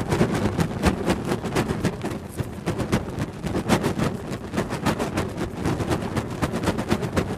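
Blowtorch flame running with a low roar and rapid, irregular crackling pops throughout.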